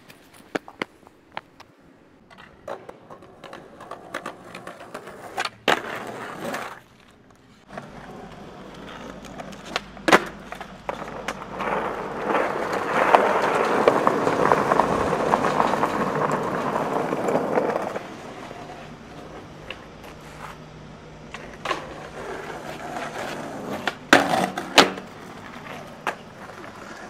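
Skateboard wheels rolling over concrete and asphalt, heard from a second board following close behind. The rolling gets louder for several seconds midway, and a few sharp clacks of a board striking the ground stand out.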